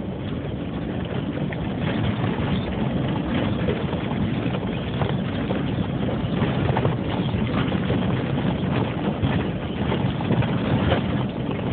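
Old Jeep driving over a rough dirt track: engine and road noise, with frequent knocks and rattles as it bounces over the bumps.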